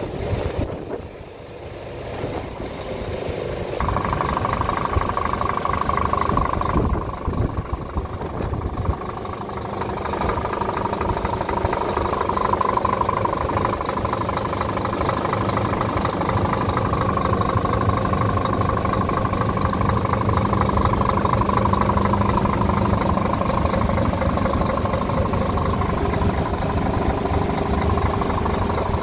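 Scania P 450 truck's 13-litre straight-six diesel engine idling steadily, heard close to the engine bay; it comes in louder about four seconds in and stays even.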